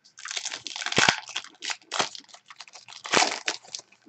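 Trading cards and their pack wrapper handled by hand: irregular crinkling and rustling as the cards are pulled out and flipped through, loudest about a second in and again near three seconds.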